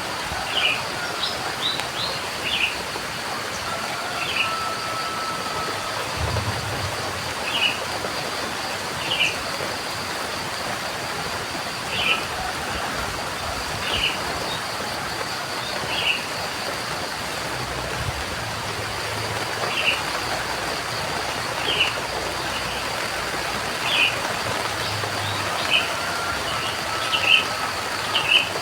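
Steady rain with a bird repeating a short, high chirp about every two seconds, over a thin steady high-pitched tone.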